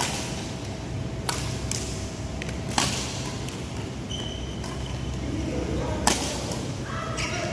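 Badminton rackets striking a shuttlecock in a doubles rally: about six sharp cracks at irregular intervals, the loudest about six seconds in, echoing in a large sports hall.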